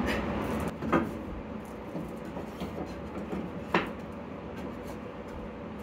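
Cut wooden boards knocking against each other and the plywood floor as they are set in place, two sharp knocks about a second in and just before four seconds, with lighter clacks between, over a steady low hum.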